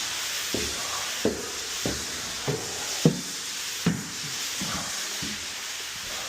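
Steady hiss of water spraying from a leaking pipe that cannot be shut off because its shut-off valve is not working, with a series of short knocks roughly every two-thirds of a second through the first four seconds.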